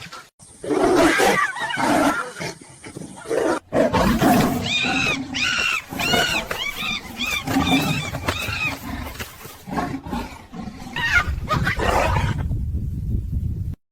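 Wild animals fighting, with loud roaring and snarling. In the middle comes a run of about seven high, arching cries in quick succession.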